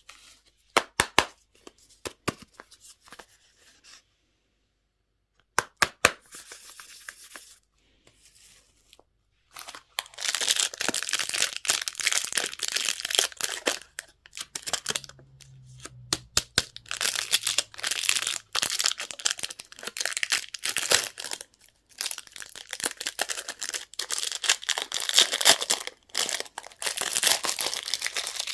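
Candy wrappers and packaging being torn open and crinkled by hand. There are a few sharp clicks and snaps at first, then, about ten seconds in, dense crinkling and tearing that goes on with only brief pauses.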